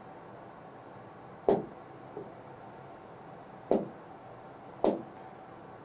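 Three short, sharp clicks over a faint steady hiss, the first about a second and a half in and the last near the end.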